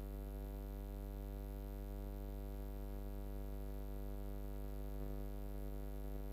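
Steady electrical mains hum with a stack of evenly spaced overtones and a little hiss, unchanging throughout: the drone of an idle, disconnected audio line.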